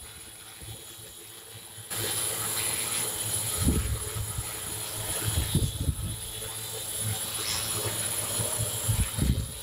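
Large multirotor drone hovering, its rotors making a steady hum that gets louder about two seconds in, with irregular low rumbling gusts.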